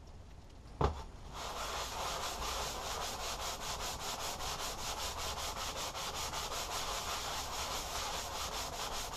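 Metal block plane body being rubbed back and forth on sandpaper laid flat on a bench, about four even strokes a second, sanding the rust off its sole and sides. A single knock comes about a second in, just before the rubbing starts.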